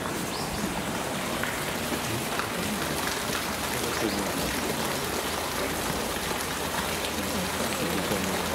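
Steady hiss of water, with faint voices beneath it.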